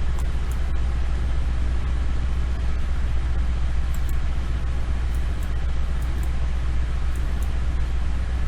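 A steady low hum of background noise, even throughout, with a few faint short clicks.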